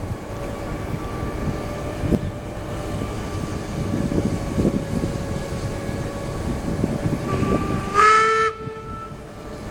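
Distant whistle of the German class 44 steam locomotive 44 1486-8: a faint steady whistle tone, then a short loud blast about eight seconds in. Wind gusts buffet the microphone.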